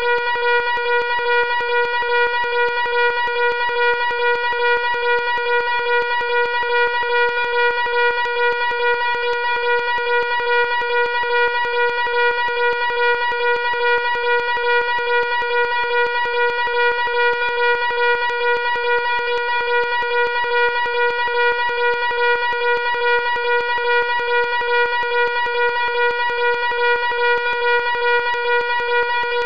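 Loud fire alarm horn sounding continuously: one steady, unbroken buzzing tone that never pauses or changes pitch.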